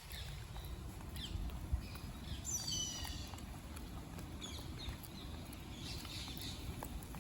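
Short high-pitched animal chirps and squeaks, the clearest a few stacked falling notes just under three seconds in, over a steady low rumble.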